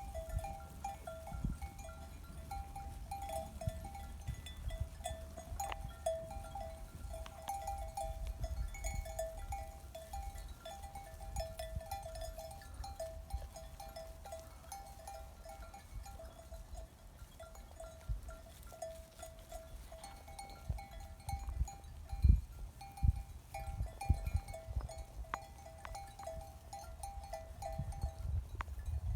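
A flock of sheep and lambs calling in a steady, mid-pitched chorus, with a few low thumps about two-thirds of the way through.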